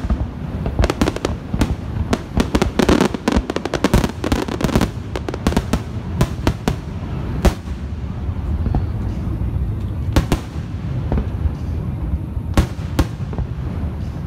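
Aerial fireworks shells bursting overhead: a dense run of rapid bangs and crackles through the first five seconds or so, then single booms every second or two.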